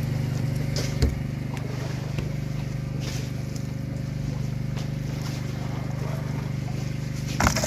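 Steady low hum of a motor running aboard a wooden fishing boat at sea. There is a single knock about a second in and a sudden noisy burst near the end.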